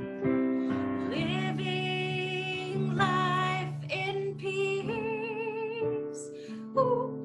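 A woman singing a slow song, her voice wavering with vibrato on held notes, over steady held accompanying chords.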